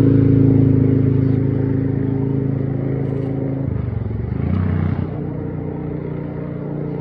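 An engine running steadily, its pitch stepping down and shifting a little past halfway.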